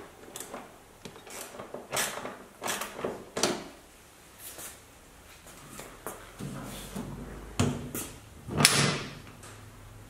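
Work noise from forcing a car's sheet-metal fender into position and tightening its mounting screw: irregular knocks, scrapes and clicks, with the loudest knock near the end.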